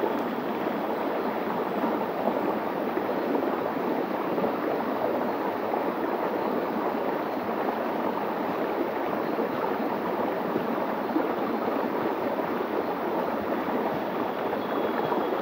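Shallow stream water spilling over a low rock ledge in a small cascade, a steady rushing of water.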